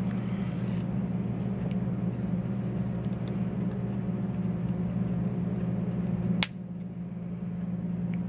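A steady low hum with a single sharp click a little past six seconds in, after which the hum briefly drops quieter.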